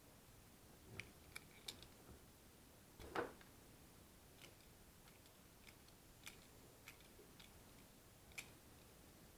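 Faint, scattered clicks and light taps of small parts and tools being handled, with one louder knock about three seconds in.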